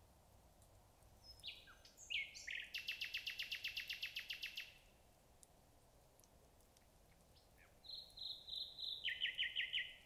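Common nightingale singing two phrases. The first is a few varied whistled notes leading into a fast run of repeated notes, about ten a second. The second is a few higher notes followed by a quicker run of lower repeated notes near the end.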